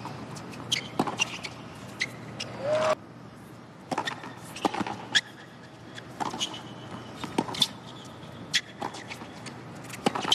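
Tennis rally on a hard court: sharp pops of the ball being struck by rackets and bouncing, about one a second, over a steady background hiss. The background drops abruptly about three seconds in.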